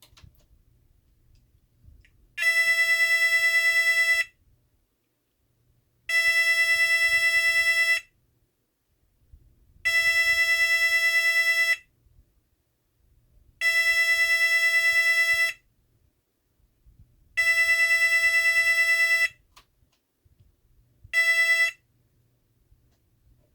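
Federal Signal SLM800R electronic sounder sounding an intermittent alarm tone: a steady, buzzy tone of about 2 seconds, then about 2 seconds off, five times over, with a short sixth blast near the end.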